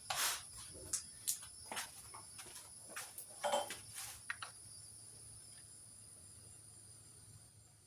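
Irregular scraping strokes of a hand tool working a walnut pistol stock, stopping about four and a half seconds in. Crickets trill steadily behind them.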